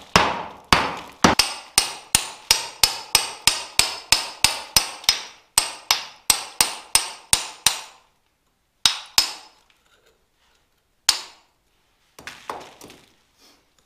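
Hammer blows: a steady run of about three strikes a second that stops about seven and a half seconds in, followed by a few separate blows.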